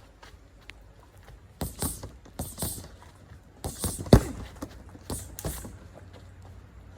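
Punches landing on a heavy bag in short combinations, each strike paired with a sharp hissed exhale, four flurries in all. The hardest thud comes about four seconds in.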